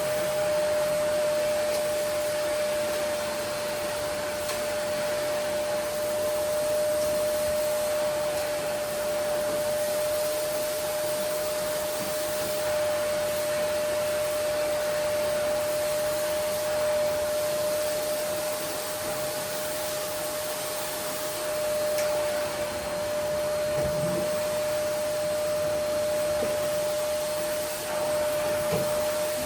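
Vacuum cleaner running steadily: an even rushing hiss with a constant motor whine, and a couple of faint soft knocks in the last few seconds.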